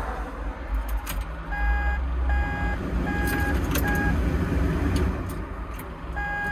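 Diesel plant engine being started and running with a steady low rumble, while a machine warning beeper sounds four times in a row and once more near the end.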